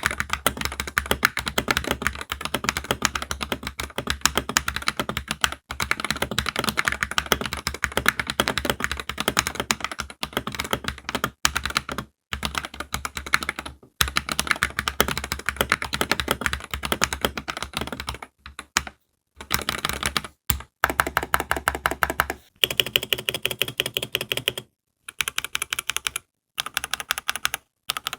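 Typing sound test of a Royal Kludge RK98 mechanical keyboard with linear Speed Silver switches: fast, continuous key clicks, broken by a few short pauses in the second half.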